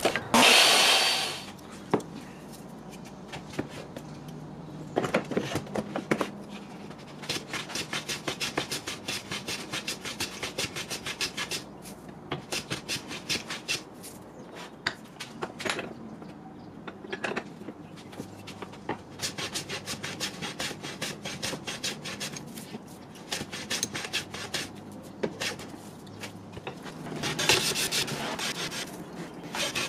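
Metal hand plane shaving a softwood board held in a bench vise, in quick repeated strokes that come in runs with short pauses between. The loudest thing is a brief burst of noise just at the start.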